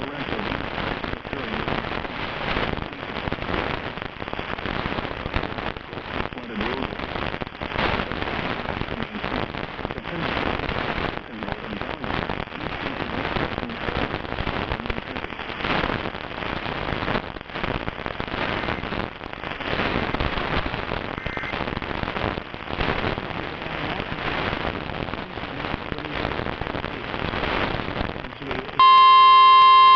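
Dense crackling, popping static with many sharp clicks, like a noisy radio channel between broadcasts. Near the end a loud steady alert tone cuts in suddenly: the weather-radio warning alarm tone that comes before the next severe thunderstorm warning.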